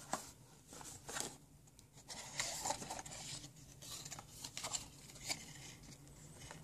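Cardboard box inserts and paper packaging being handled: scattered light taps and clicks, then denser rustling and sliding of card and paper from about two seconds in.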